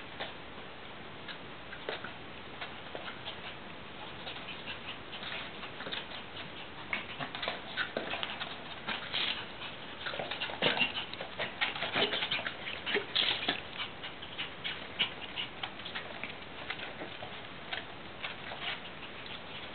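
Shiba Inu puppies at play: a busy scatter of quick clicks and taps from paws and claws, mixed with short puppy whimpers, thickest around the middle.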